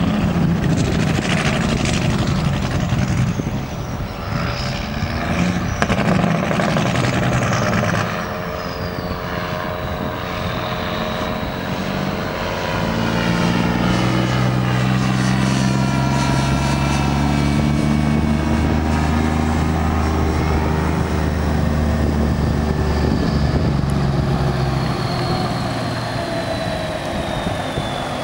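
1977 Kenworth cabover semi tractor's diesel engine pulling hard as the truck drives up through the yard, a strong steady engine note that eases off about three seconds before the end as it lets off the throttle.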